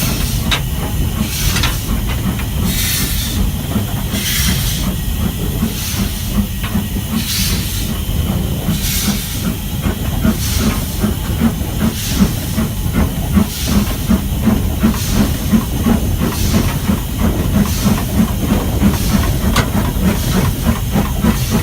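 Stanier 8F two-cylinder 2-8-0 steam locomotive hissing steam over a steady low rumble, with pulses of hiss about every second and a half and rapid light ticking later on.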